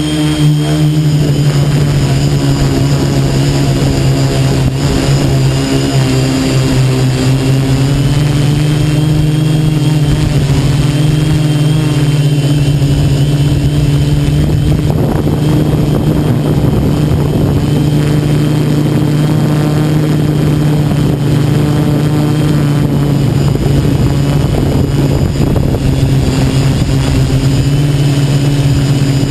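A quadcopter's brushless motors and propellers buzz loud and steady, heard through the camera mounted on the drone itself, the pitch shifting slightly as the throttle changes.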